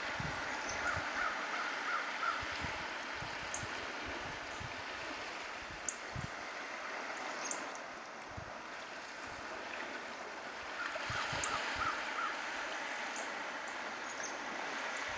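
Steady wind rushing over the microphone with irregular low buffeting thumps, over waves washing on a sandy lakeshore. Twice, once near the start and again about two-thirds of the way through, a bird calls a quick run of short notes.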